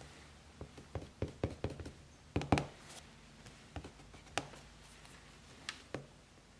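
Yellow wooden pencil making a run of short sketching strokes on paper: about a dozen quick scratches and taps, bunched together for the first couple of seconds, the loudest about two and a half seconds in, then a few scattered ones.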